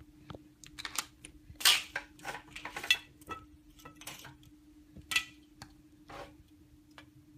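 Horizontal window blinds being opened: the slats clatter and click in a string of irregular rattles, with sharp louder clacks at about two, three and five seconds in.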